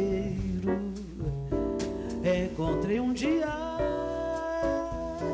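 Woman singing a Brazilian samba song live with band accompaniment.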